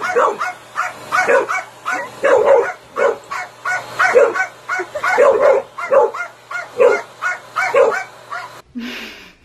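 Dog barking rapidly at a vacuum cleaner, two to three sharp barks a second, over a steady low hum. The barking stops shortly before the end.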